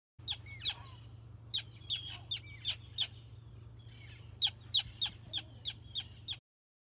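Terns calling overhead: a rapid series of short, sharp, high calls, some sliding down in pitch, loudest a little past the middle, over a steady low rumble. The sound cuts off suddenly near the end.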